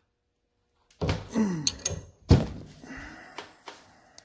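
Metal clunks and scraping of a wrench and bench vise being handled, with one heavy thunk about two seconds in. The first second is silent.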